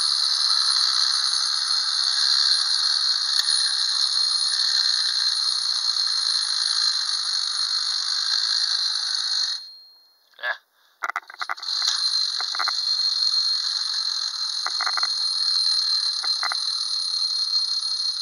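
Wind-up clockwork motor of a 1970s 'Stop and Go' snorkel fire engine toy running with its bell ringing in a rapid, steady rattle. About halfway through it stops, leaving a few clicks while the snorkel boom works, then starts running and ringing again about two seconds later.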